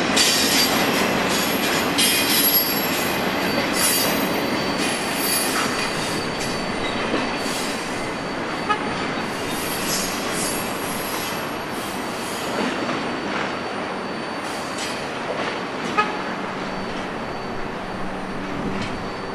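Union Pacific double-stack container train rolling past on steel rails. The noise slowly fades as the last cars pull away, with a few sharp clicks from the wheels later on.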